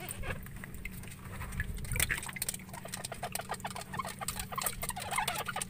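A caught needlefish thrashing and being handled in shallow water in a wooden boat's hold: quick irregular splashes and small knocks, getting busier about two seconds in.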